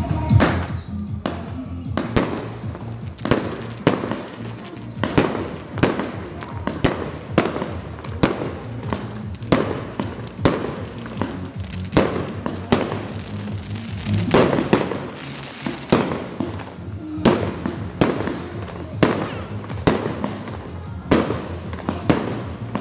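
Aerial fireworks going off in a long, unbroken run of sharp bangs, about one or two a second.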